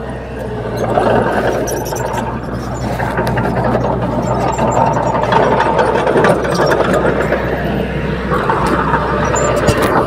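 Small crawler bulldozer's diesel engine running steadily under load as it pushes soil, with scattered clanks and rattles over the engine noise.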